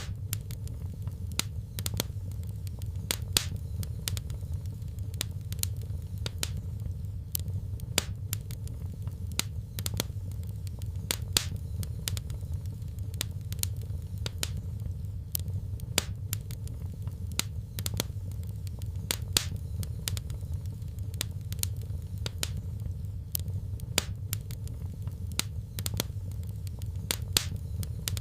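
Fireplace fire crackling: a steady low rumble with irregular sharp pops and snaps, several a second.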